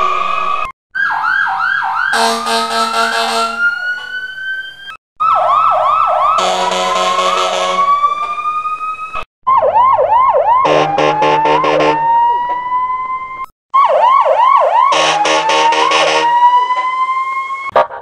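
Police siren sound effect played four times in a row, each about four seconds long with a short silent gap between. Each goes: a quick run of yelps, a blaring horn-like blast, then a slow rising wail. The repeats are altered versions of the same siren clip.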